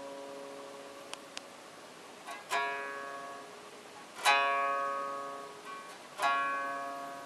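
Koto strings plucked by a cat: three clear twangs roughly two seconds apart, each ringing and slowly fading, with a couple of fainter plucks between them.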